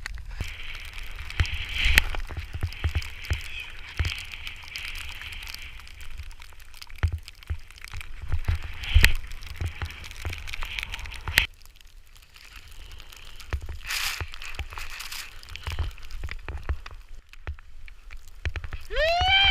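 Snowboard riding through deep powder snow: a steady hiss of the board and spraying snow, with wind rumbling on the microphone and many knocks and thumps. Just before the end comes a short rising vocal cry.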